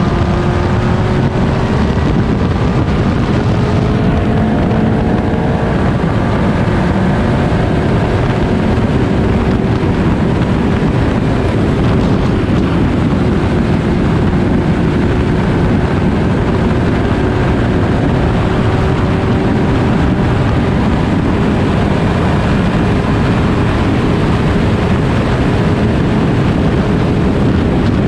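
Open-wheel formula race car's engine running under way on track, its note climbing over the first few seconds and then holding steady, with heavy wind rumble on the onboard microphone.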